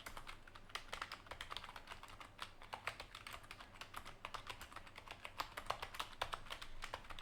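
Typing on a Corsair K55 RGB membrane keyboard: a rapid, irregular run of soft key presses, several a second, with no pause.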